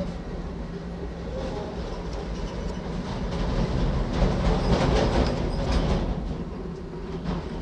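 Steady low rumbling noise with a constant low hum, growing louder in the middle and easing off again.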